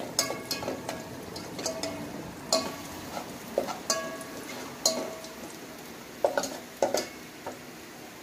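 Spatula stirring and scraping garlic in oil in a metal pot, with irregular clinks against the pot that leave it ringing briefly, over a light sizzle.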